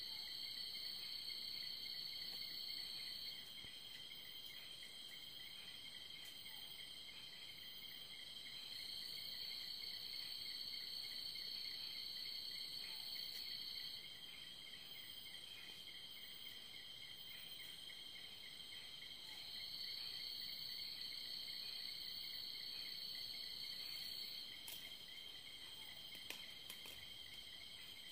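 A chorus of night insects, crickets among them: a steady high trill and a faster pulsing one beneath it, joined three times by a louder, higher buzz that lasts about five seconds each time.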